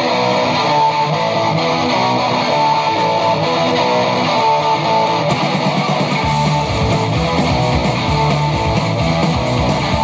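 Guitar-led music with a steady beat playing through a Soundcore Motion Boom Plus portable Bluetooth speaker.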